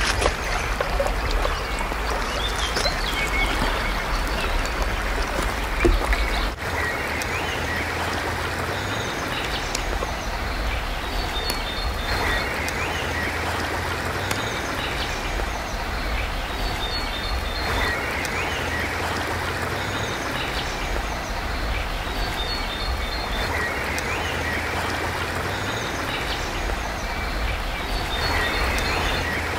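Steady rush of running stream water, with short bird chirps that come back about every five to six seconds.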